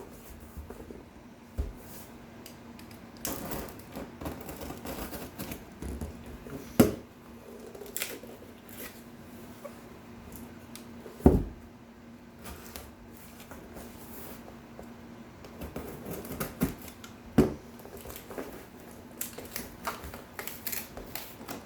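Cardboard shipping box being worked open by hand: scattered scraping, rustling and clicks, with a few sharp knocks.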